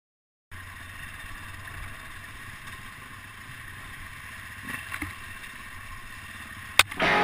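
Enduro dirt bike's engine running steadily on a muddy trail, heard from onboard with wind noise. A sharp click comes near the end, and guitar music cuts in just before it ends.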